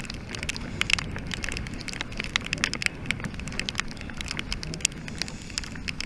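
Water drops and spray pattering against the camera housing in quick, irregular ticks, over a low rush of water along a rowed surfboat's hull.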